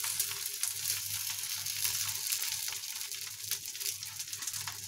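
Chila batter sizzling on a hot, lightly oiled non-stick tawa while a metal spoon spreads it in circles, the spoon scraping and ticking lightly against the pan.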